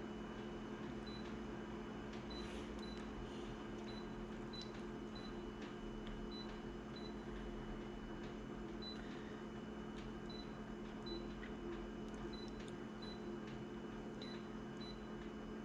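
Quiet room tone: a steady low electrical hum, with faint regular high pips and a few faint light clicks.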